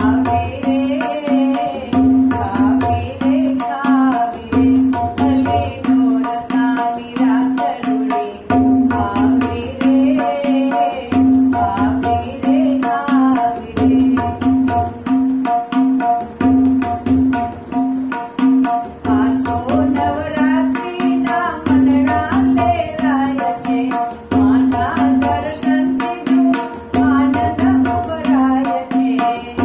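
Tabla played in a steady, repeating garba rhythm. The right-hand drum rings at one pitch on nearly every stroke, and the left-hand bass drum sounds in regular groups about every two and a half seconds. A woman's voice sings a Gujarati garba melody over it.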